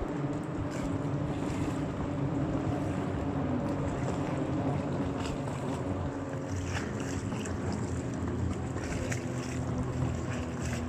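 Racing powerboats' engines running at speed across the water, a steady drone, with wind buffeting the microphone.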